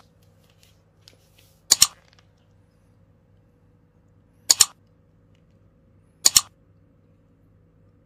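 Mouse-click sound effects of a like-and-subscribe button animation: sharp double clicks, press and release, at the very start and three more times about two seconds apart.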